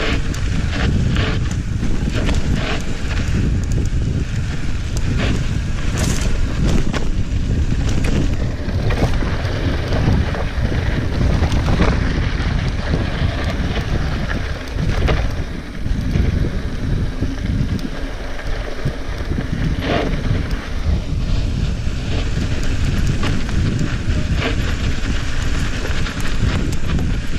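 Wind buffeting the action camera's microphone while a mountain bike rolls over a dry dirt trail, with rumbling tyre noise and scattered clicks and knocks from stones and the bike.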